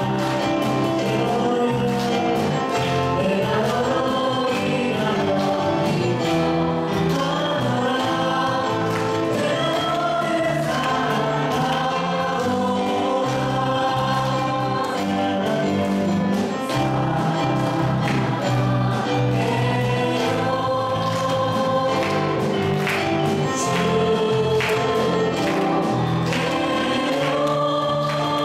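Church praise team of two women and a man singing a Korean worship song, backed by a live band with drums and keyboard.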